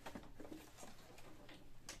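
Faint handling noise from a printer's plastic housing being gripped and shifted: scattered light clicks and taps, with one sharper click near the end.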